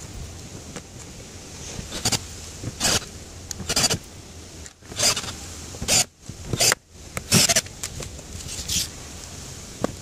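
18-volt Ni-Cd cordless drill driving screws through the metal flange of a new RV roof vent into the roof: a series of short whirring bursts, each about half a second, with pauses between as each screw is driven home.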